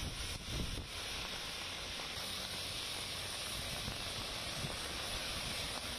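Steady hiss of traffic on a rain-soaked road, tyres running through water, with a low rumble from a passing vehicle in the first second.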